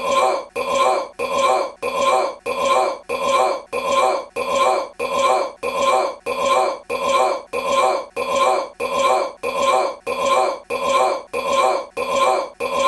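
A man's short belch looped over and over, each repeat identical, about three every two seconds.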